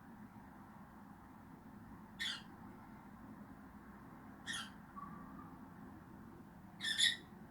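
Peach-faced lovebird giving three short high calls, spaced about two seconds apart.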